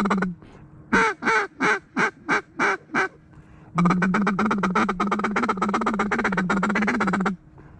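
Mallard duck call blown close by: a descending run of six quacks, each falling in pitch and shorter than the last, then a long, fast, rattling feed call of about three and a half seconds, calling to mallards working the river.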